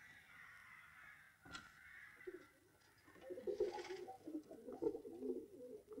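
Pigeons cooing: a run of low, warbling coos that starts about two seconds in and keeps repeating.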